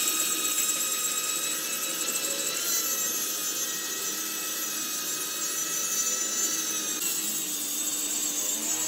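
Angle grinder with a cutting disc cutting into the steel centre disc of a wheel rim: a steady motor whine over the hiss of the disc grinding through steel.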